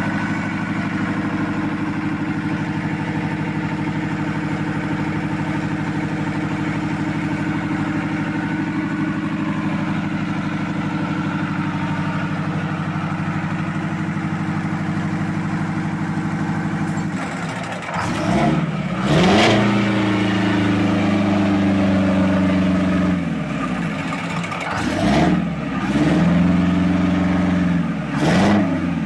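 Car engine idling steadily, then revved in a few short throttle blips from about eighteen seconds in, the pitch rising and falling back each time.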